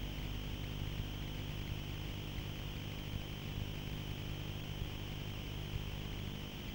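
A steady low hum with a constant hiss over it, unchanging throughout.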